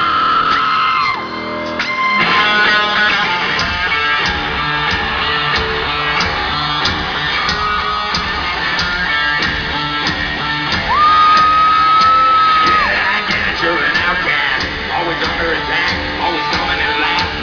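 Hard rock music with electric guitar and regular drum hits, and one long held high note about eleven seconds in.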